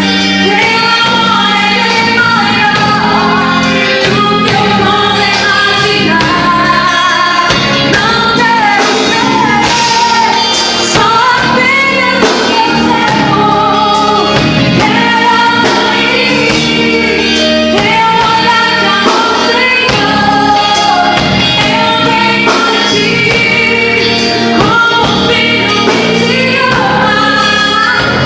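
A gospel band playing live with a female-led group of singers, a worship song sung in full over the band.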